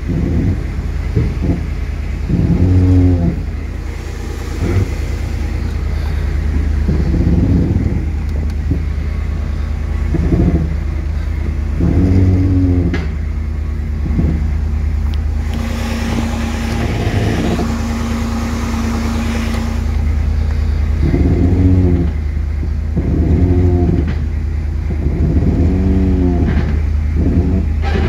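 1989 Chevrolet Camaro engine running, its revs swelling and falling in short surges every second or two as the car is eased backward under throttle. About halfway through there is a few seconds of hiss with a faint steady whine.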